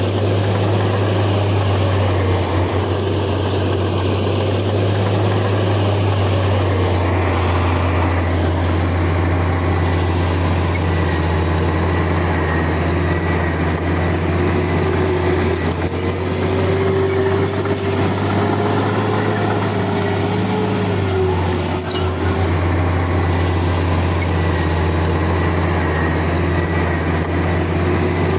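Bulldozer's diesel engine running steadily, with a wavering whine that rises and falls around the middle.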